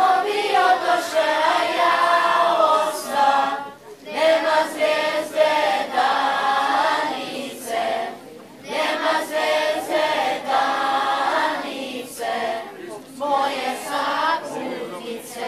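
A children's choir singing together under a conductor, in phrases broken by short pauses about every four seconds.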